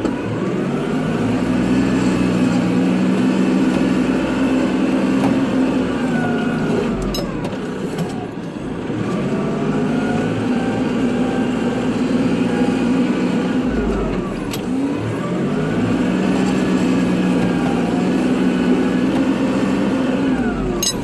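Kubota tractor engine running under load while plowing snow. Its pitch rises and falls in repeated cycles about every seven seconds, with a brief dip and a short click between cycles.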